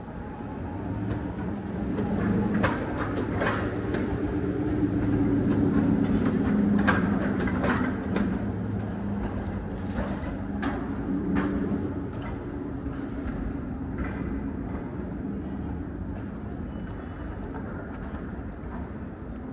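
A streetcar passing on street tracks: a low rumble that builds over the first few seconds and slowly fades, with a string of sharp clacks as its wheels cross rail joints in the middle.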